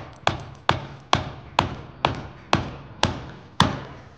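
Rubber mallet striking the top of a steel kingpin, driving it down through a So-Cal Speedshop I-beam front axle and spindle. About eight sharp blows, roughly two a second, which stop a little before the end.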